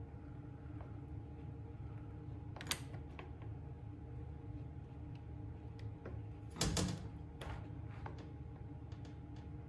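Light clicks and taps of hands working a fuel line onto a chainsaw's carburetor, with one sharp click about a quarter of the way in and a louder knock about two-thirds through, over a steady low hum.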